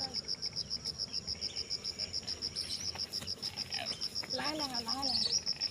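Insect chirping, cricket-like, in a high, rapid and even pulse of about eight or nine chirps a second, with a brief distant voice about four seconds in.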